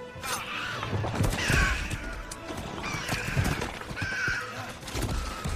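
Giant spider monster Shelob screeching several times, shrill cries that fall in pitch, over orchestral film music with deep low rumbles.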